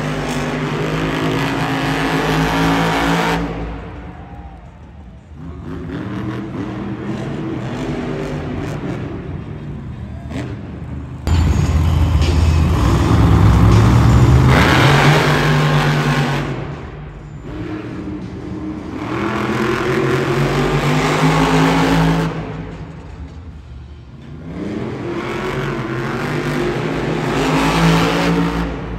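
Monster truck supercharged V8 engines revving and accelerating hard in about five rising surges with short lulls between them, the loudest starting suddenly about eleven seconds in.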